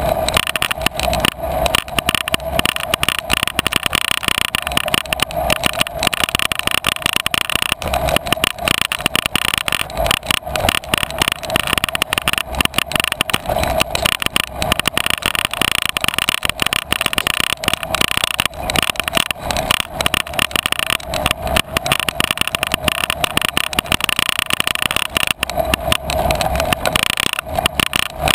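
Constant rattling and clattering from a bicycle-mounted camera jolting over a rough, sandy dirt trail, mixed with tyre and riding noise.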